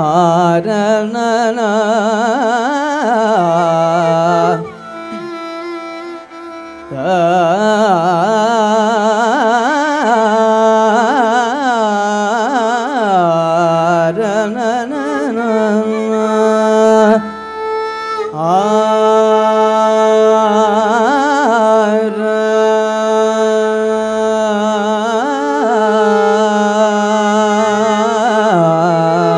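Carnatic vocal singing by a young male voice with violin accompaniment: long held notes that waver and slide in pitch, heavily ornamented with gamakas. The music drops to a quieter passage briefly about five seconds in.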